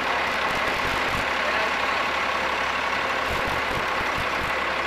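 Heavy vehicle's engine running steadily nearby, a constant low hum under an even hiss.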